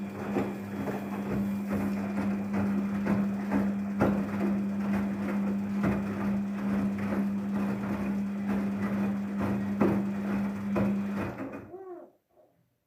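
Daewoo DWD-FT1013 washing machine running a wash: a steady motor hum with laundry and water tumbling and knocking in the drum. Near the end the motor winds down with a falling whine and the drum stops, the pause between tumbling turns of the wash.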